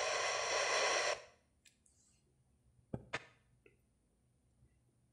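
Pioneer MVH-98UB car radio putting out a steady hiss of static between stations, which cuts off suddenly about a second in as the automatic seek mutes the audio. A few faint clicks follow, with two sharp clicks close together about three seconds in, then near silence.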